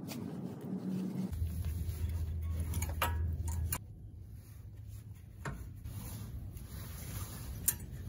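Hand work on a car's brake caliper: a wrench and metal parts handled, giving light rubbing and a few sharp metallic clicks and clinks over a low steady hum.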